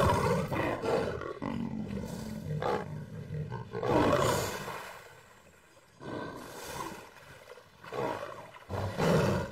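A lion growling and roaring in repeated bursts, loudest at the start and again about four seconds in.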